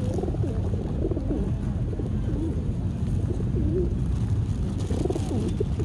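Pigeons cooing: repeated low, wavering coos, several overlapping, over a steady low rumble.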